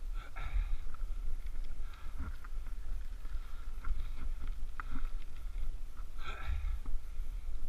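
Wind rumbling on the microphone of a camera mounted on a bicycle climbing a steep paved road, over a faint hiss of tyres on tarmac. There are two louder swells, about half a second in and near the end, and a few light ticks in between.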